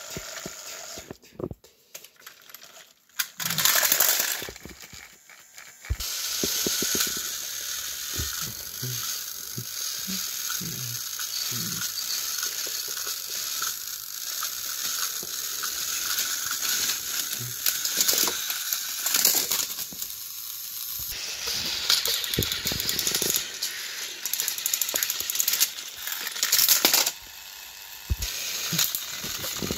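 Battery-powered Thomas & Friends toy train engines running against each other on plastic track: small motors whirring with gears and wheels rattling and clicking. The running starts in earnest about six seconds in and goes on steadily after a brief louder burst.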